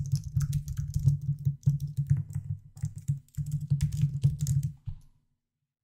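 Typing on a computer keyboard: a quick, irregular run of keystrokes that stops about five seconds in.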